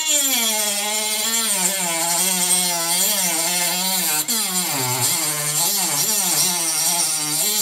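Dremel rotary tool with an abrasive cut-off wheel grinding through a penny: a motor whine that wavers and dips in pitch under the load, over the hiss of the wheel cutting the metal.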